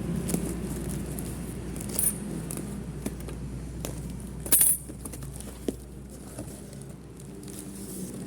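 Small hard objects being handled, clinking and clicking a few times, the loudest cluster about four and a half seconds in, over a steady low rumble.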